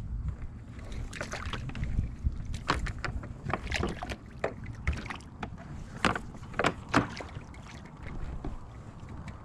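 Crappies splashing on a rope stringer at the side of a kayak, mixed with sharp clicks and knocks as the fish and stringer are handled, scattered irregularly throughout, the loudest about six and seven seconds in.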